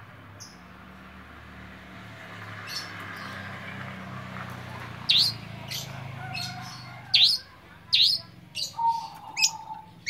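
Caged long-tailed shrike (pentet) giving short, sharp, high chirps, a run of them from about five seconds in at roughly one or two a second. The bird is in over-birahi, an overexcited breeding condition.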